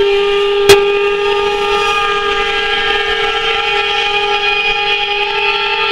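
Steam locomotive whistle blowing one long, steady call of several tones at once. A single sharp crack sounds near the start.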